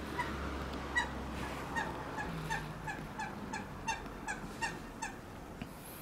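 A bird calling in a quick run of short, clipped calls, about three a second, for around five seconds.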